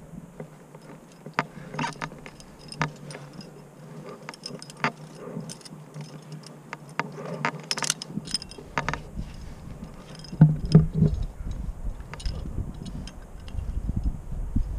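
Climbing quickdraw and carabiners clinking as rope is pulled up and clipped into a bolt: scattered small metal clicks and scuffs. A low rumble joins from about eight seconds in.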